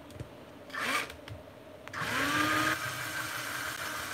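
Cordless drill running as a rivet is drilled out of a die-cast truck model's plastic sleeper floor. A short burst comes about a second in. Then the motor spins up about two seconds in and holds a steady speed to the end.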